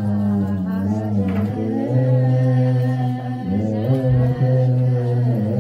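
A group of voices chanting a wereb, an Ethiopian Orthodox Tewahedo liturgical hymn, unaccompanied, in long held notes that shift pitch a couple of times.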